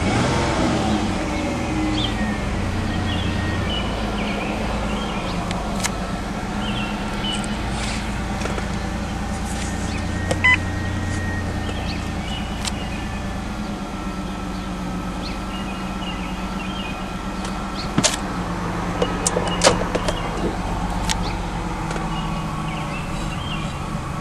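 2001 Ford Escape's 3.0 L Duratec V6 idling roughly and erratically, its low note wavering unevenly every few seconds: a bad idle, with the check engine light on. A few sharp clicks sound about halfway through and again later on.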